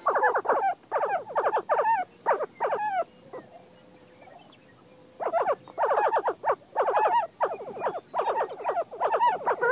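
Lesser prairie chickens calling: runs of short, quick calls, a pause of about two seconds near the middle, then faster runs of calls again.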